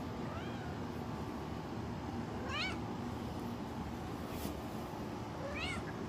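Black-and-white domestic cat meowing three times in short high calls, the first one faint. The owner takes the meowing as a sign that she is hungry.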